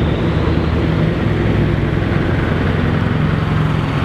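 Scania tanker truck's engine running steadily at low revs, a constant low rumble.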